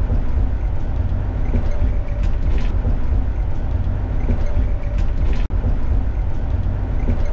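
Steady low road and engine rumble inside the cab of a Thor Axis motorhome cruising at highway speed, with a brief sharp dropout about five and a half seconds in.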